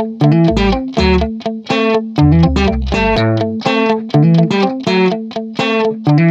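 Background music: plucked guitar notes in a quick, steady run over a low held note, with bass notes in the first half.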